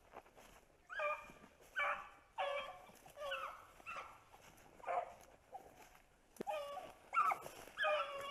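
Beagles baying while running a rabbit: a string of about nine short, pitched bays, a little under a second apart.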